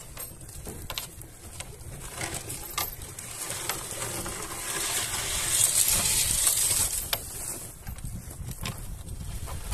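Rustling and crunching of footsteps through dry grass and scrub, with scattered twig snaps, swelling to its loudest for a couple of seconds a little past the middle, over a low rumble.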